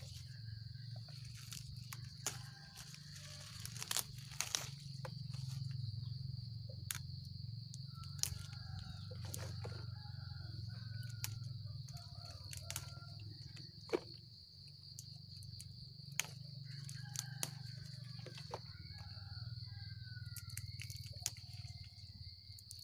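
A steady, high insect drone, with scattered clicks and crackles of leaves and stems being brushed and handled. Short chirping calls come and go in the middle.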